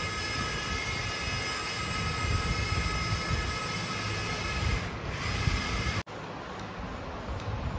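Electric motor and gear drivetrain of a radio-controlled scale crawler whining at a steady pitch over an uneven low rumble. The whine fades about five seconds in, the sound cuts off abruptly a second later, and a quieter rumble follows.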